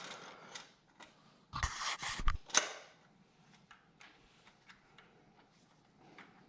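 A cluster of sharp clicks and knocks about one and a half to two and a half seconds in, then faint scattered ticks. These are the OneUp EDC carrier and its bolt being handled and fitted into a bike's fork steerer tube.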